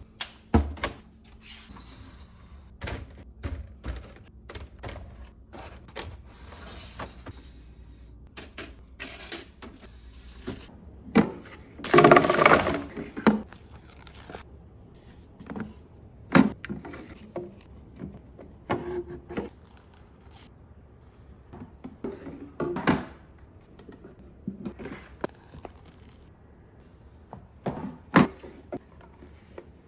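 Irregular knocks, clicks and clatter of cleaning bottles and containers being handled and set down in an under-sink cabinet. About twelve seconds in there is a longer, louder stretch of rustling and clattering.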